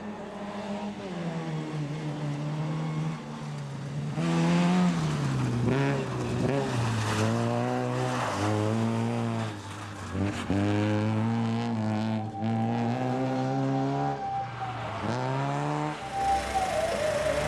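Daihatsu Charade 4WD rally car's engine revving hard on a snow and ice stage. The pitch climbs and then drops sharply several times as the throttle comes and goes.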